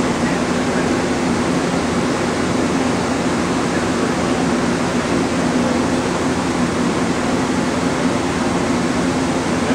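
Steady hum and rush of a stopped MARC commuter train's onboard equipment, such as its air conditioning, running close by, with a constant low drone underneath.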